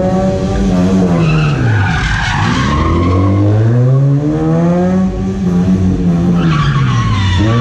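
Race car's engine revving up and dropping back twice as it is driven hard through a cone slalom course, with tyres squealing in the turns, about two seconds in and again near the end.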